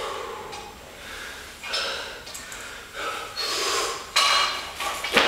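Hard, heavy breathing of a winded athlete between barbell cleans, several loud breaths in and out. Near the end, one sharp knock, with the loaded barbell being gripped and lifted.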